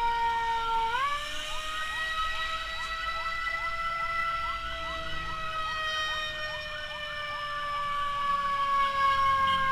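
Ambulance siren sounding: a sustained tone that jumps up in pitch about a second in and then slowly sinks, with quick rising chirps repeating about two or three times a second over it. A low vehicle rumble runs beneath it.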